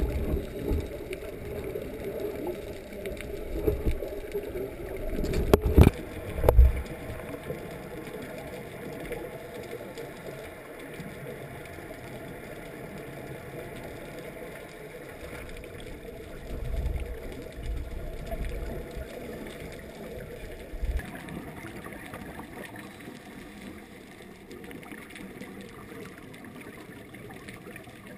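Underwater sound through a GoPro's waterproof housing: a muffled steady wash, with low rumbling gusts of scuba regulator exhaust bubbles and a few sharp knocks on the housing about six seconds in.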